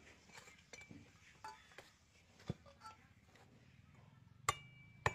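A large knife chopping into a green coconut: a few scattered strikes, the two loudest near the end, each followed by a brief metallic ring from the blade.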